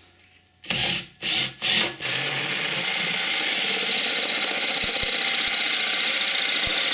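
Ryobi cordless drill driving a 3-inch hole saw into a plywood cupboard top: three short bursts as the teeth bite in, then cutting steadily from about two seconds in.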